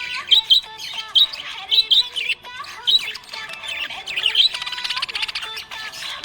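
Budgerigars chirping and warbling: a string of sharp, loud chirps, with a fast buzzy chatter about four and a half seconds in.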